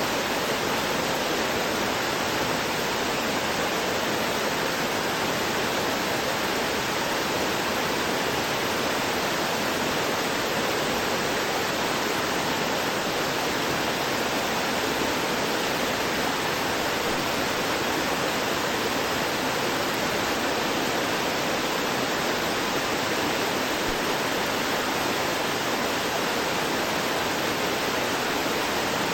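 Waterfall pouring down a rocky cliff: a steady, unbroken rush of falling water.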